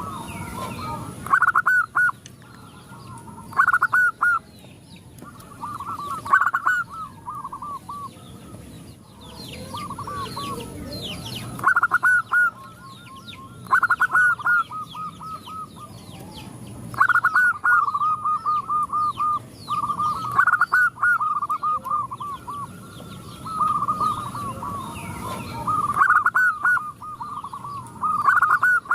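Several zebra doves cooing, one after another and sometimes overlapping: bursts of quick, bubbling notes every two or three seconds.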